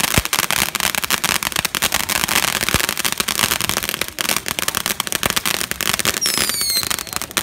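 Consumer ground firework crackling continuously: a dense, rapid run of small sharp pops. A short falling whistle comes about six seconds in.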